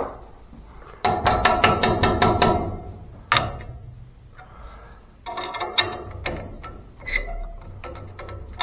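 Runs of rapid metallic clicking, about six a second, from a tool tightening a fastener on the pipe mounting, with single knocks and clicks in between. The longest run comes about a second in.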